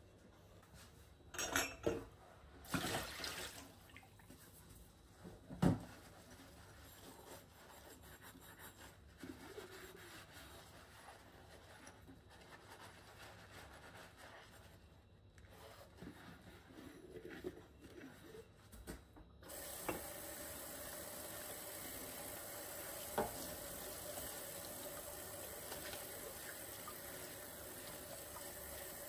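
Washing up at a stainless-steel kitchen sink: a few sharp clinks of crockery, then a soapy sponge scrubbing a ceramic cup. About two-thirds of the way in the tap is turned on, and water runs steadily into the sink over hands and the cup being rinsed.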